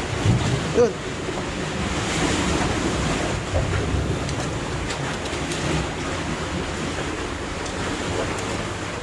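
Sea water washing and surging through the gaps between concrete breakwater blocks, a steady rushing noise, with some wind on the microphone.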